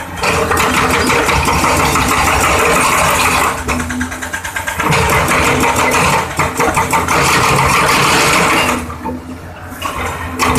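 Excavator-mounted hydraulic breaker hammering concrete in rapid, continuous blows, in three runs of a few seconds with brief pauses between, over the steady running of the excavator's diesel engine.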